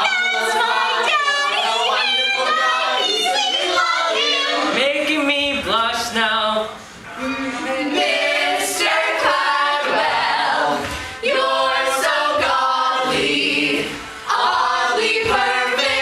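A mixed group of men's and women's voices singing a musical-theatre number together, with short breaks about seven, eleven and fourteen seconds in.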